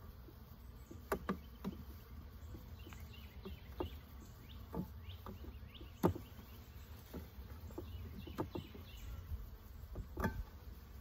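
Honeybees buzzing around an open hive and package box, with scattered light knocks and clicks as the wooden bee package is handled; the loudest knock comes about six seconds in.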